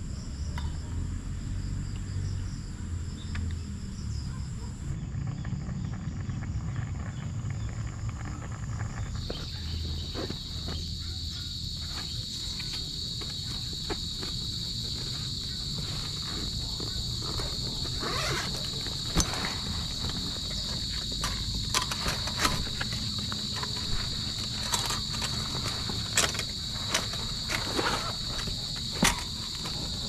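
Insects (crickets or cicadas) trilling steadily at a high pitch; about nine seconds in, a louder, lower-pitched insect chorus takes over. Through the second half, scattered sharp taps and clicks sound over it, coming more often toward the end.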